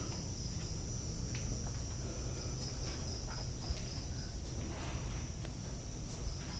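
Crickets chirring steadily at one high pitch, with a few faint knocks.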